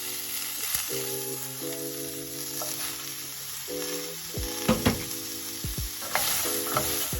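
Food sizzling as it fries, a steady hiss with a few sharp clicks about halfway through and again near the end, over soft background music of held chords.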